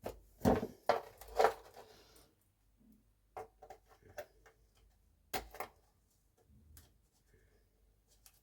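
Plastic push-button hatch latch being pushed and screwed into a tight, freshly cut hole in the fibreglass: a series of scrapes, clicks and knocks, the loudest in the first two seconds and another pair about five seconds in.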